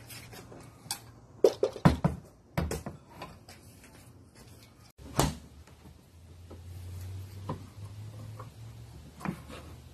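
Sharp knocks and clacks from handling a hatchback's rear hatch and its gas lift support strut: a quick cluster of several about one and a half to two and a half seconds in, a single one about five seconds in, and lighter taps near the end.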